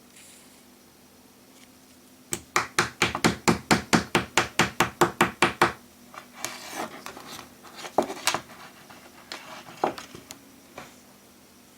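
Small hard objects being handled on a work surface: a fast, even run of about twenty sharp taps, followed by scattered knocks and rubbing.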